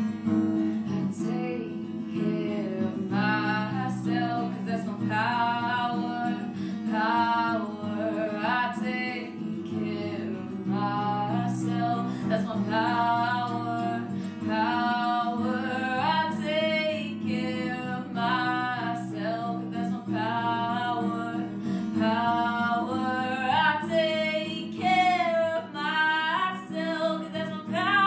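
Acoustic guitar strummed steadily, with a woman's voice singing over it from about three seconds in.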